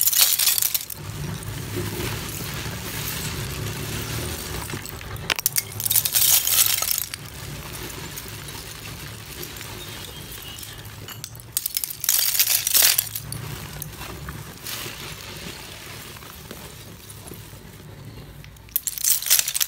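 Dry, brittle flakes of roasted multani mitti (Fuller's earth clay) scooped by hand and dropped back onto the heap. They fall in four short spills about six seconds apart.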